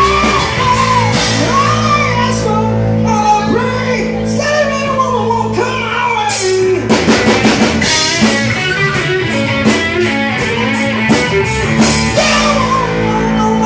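Rock band playing live: an electric guitar riff over held bass and a drum kit, with a quick run of drum hits and cymbal crashes about seven seconds in.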